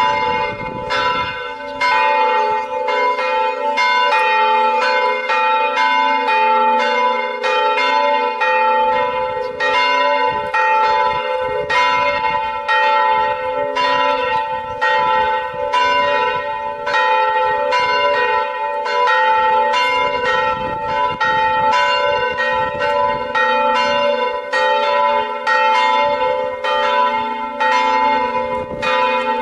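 Church bells pealing, a steady run of strokes with each one ringing on into the next.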